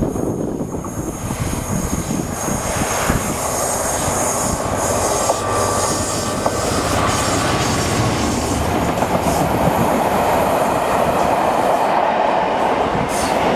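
A Class 67 diesel-electric locomotive, with its two-stroke V12 engine running, passes close by hauling coaches. The coaches roll past with wheels clattering over the rail joints and squealing on the curve, the sound growing steadily louder.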